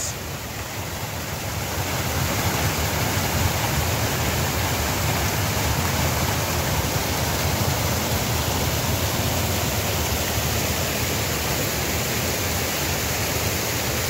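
Waterfall cascading over rock ledges into a stream: a steady rush of falling water that swells a little over the first two seconds.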